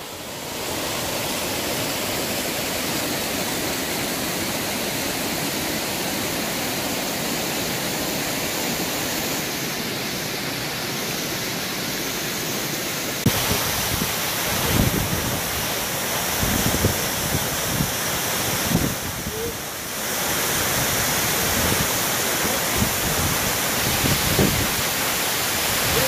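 Mountain stream and waterfall rushing over rocks, a steady loud hiss of falling water. About 13 seconds in the sound changes abruptly, and after that scattered low thumps sit under the water noise.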